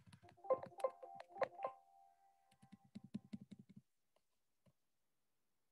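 Faint clicking of a computer keyboard and mouse: several sharp clicks in the first two seconds with a short ringing tone under them, then a quick run of about a dozen soft clicks.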